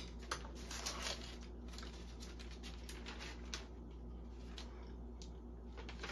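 Sheets of paper in a stack of handwritten notes being handled and leafed through: faint, irregular rustling with small ticks and taps.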